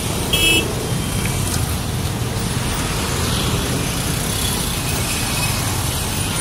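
Motorcycle and car engines running in slow, crowded traffic, a steady low rumble, with one short horn beep about half a second in.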